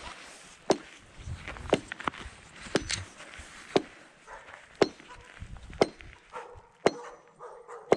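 A hand tool striking frozen pond ice in sharp, evenly spaced blows about once a second, chipping into the ice to check how thick it is.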